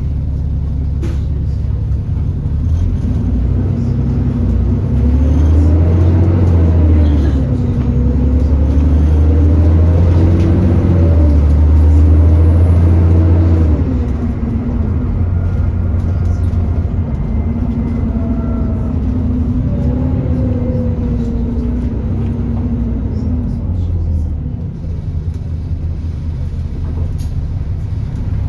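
Alexander Dennis Enviro400 E40D double-decker bus heard on board: the engine and drivetrain pull under load over a heavy low rumble, their pitch rising and falling as the bus speeds up and slows. The run is loudest in the first half, then eases off.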